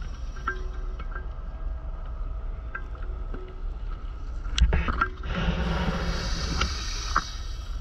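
Underwater sound from a scuba diver's camera: a steady low rumble of water against the housing, a few sharp clicks, and a rush of regulator exhaust bubbles lasting about two seconds near the end.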